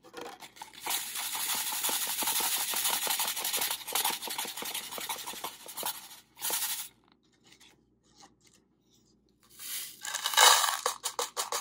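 Gravel rattling and scraping on a wire-mesh screen as a dry mixture is shaken, the fine salt and powder sifting through, for about six seconds. Near the end the gravel is tipped off the screen into a plastic cup with a short clatter.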